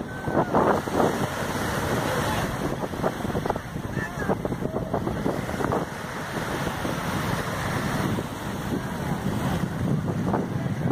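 Wind buffeting the microphone over water, with the wash of waves and scattered short bits of voices.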